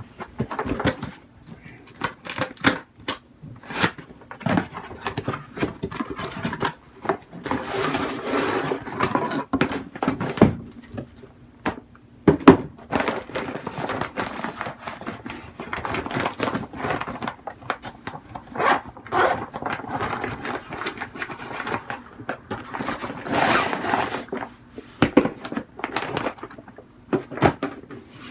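Hands unpacking and handling gear and its packaging: irregular rustling, scraping, clicks and knocks, with a sharp knock about halfway through.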